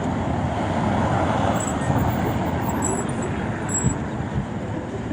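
Steady city traffic noise of cars and other motor vehicles passing on a busy avenue, swelling slightly in the first couple of seconds.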